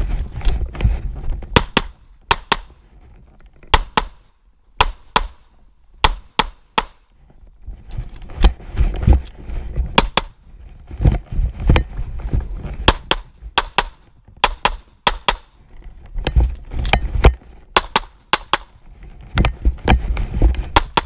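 Semi-automatic pistol firing a long string of sharp shots, mostly in quick pairs a fraction of a second apart, with gaps of a second or two between pairs. Low rumbling runs between the shots.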